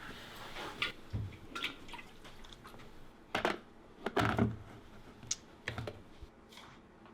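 Kitchenware being handled as tea is made: a series of irregular clicks and knocks, loudest in a cluster about three to four and a half seconds in.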